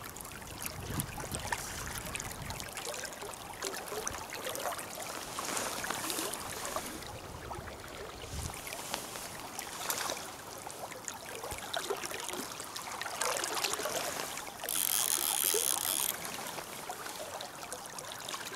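River water flowing and trickling, with scattered small splashes and clicks and a brief harsh hiss about fifteen seconds in.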